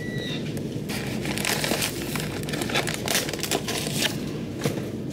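Crinkling and rustling handling noise, an irregular run of small crackles starting about a second in.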